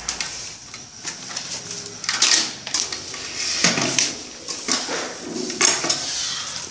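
Irregular clicks, knocks and light clatter of hands handling a power wire and plug while connecting a table fan.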